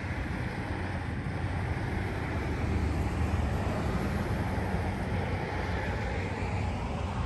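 Steady low rumble of road traffic from a nearby busy street.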